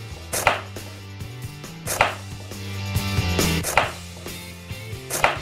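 Kitchen knife chopping a carrot on a wooden cutting board: four sharp chops about a second and a half apart.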